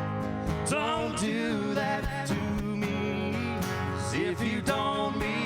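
Country song played live on guitar, with a male voice singing held notes.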